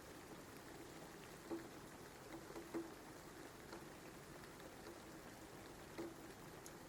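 Faint, steady rain, with a few separate drops landing louder on a surface now and then.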